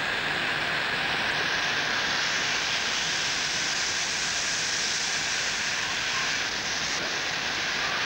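Steady hiss of escaping steam from a South African Railways steam locomotive moving slowly past, even in level with no exhaust beats.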